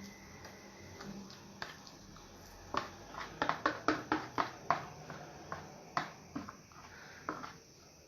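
Eating sounds from fufu and stew: a run of sharp, wet smacking clicks, about ten in quick succession around the middle, with a few scattered ones before and after.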